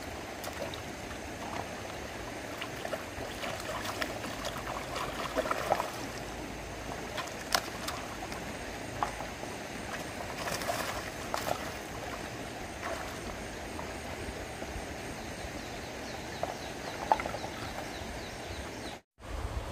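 Stream water running and gurgling, with a few short, sharp splashes or knocks scattered through it.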